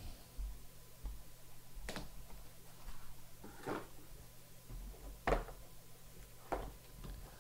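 Clear plastic card holders being handled and set down on a tabletop mat: four or five short, sharp plastic clacks a second or more apart.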